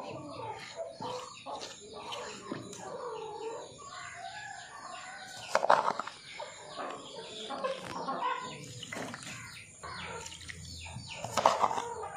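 Domestic chickens clucking repeatedly, with one or two louder calls about six seconds in and near the end. Under them, a hand rubs and swishes water over a stone grinding slab.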